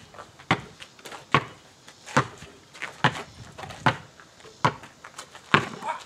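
Basketball being dribbled on asphalt: seven evenly spaced bounces, a little more than one a second, with fainter scuffs between them.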